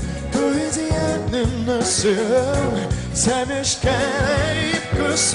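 A male pop singer sings a ballad over full band accompaniment, with vibrato on the held notes.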